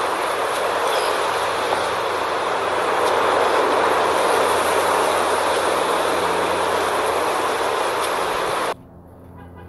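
Steady rushing noise of sea surf and wind on a beach. It drops away sharply near the end.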